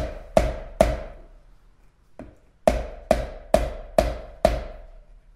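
A raw egg knocked against the rim of a plastic mixing bowl to crack its shell: sharp hollow knocks about two a second, three in a row, a pause, then four more.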